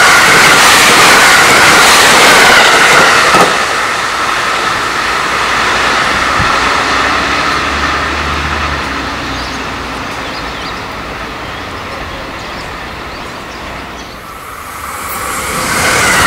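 JR West 683 series limited-express electric trains at speed. One passes close by with a loud rush of wheels and air that cuts off sharply about three seconds in. After that comes the softer, slowly fading running noise of another train on the track, then a rushing noise that swells near the end as the next express approaches.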